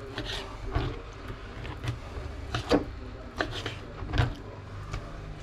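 A knife cutting magpie goose meat on a cutting board: irregular knocks of the blade striking the board, the loudest about two and a half seconds in, over a steady low hum.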